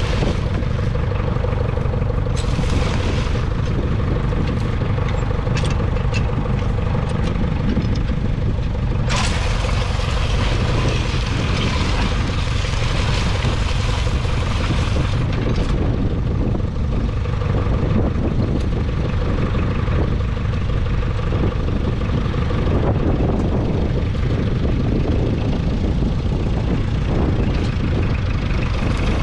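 1959 Ferguson FE35's 2.3-litre four-cylinder diesel engine running steadily under load as it pulls a two-furrow mounted plough through the soil. A rushing hiss swells in about nine seconds in.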